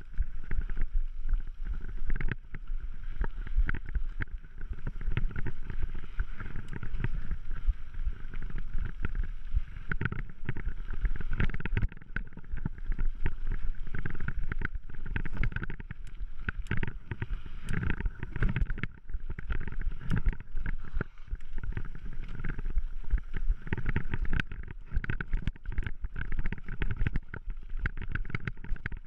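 Mountain bike ridden over rough dirt singletrack, picked up by a handlebar-mounted camera: a continuous clatter of rapid knocks and rattles from the bike jolting over roots and bumps, over a low rumble of tyres on dirt.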